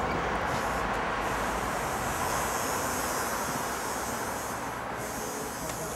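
Steady, even hiss of background noise, easing slightly near the end.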